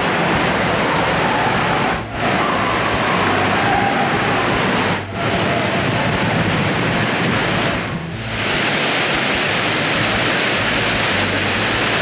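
Steady roar of Fukuroda Falls, a dense rushing-water noise, broken by three brief dips about two, five and eight seconds in.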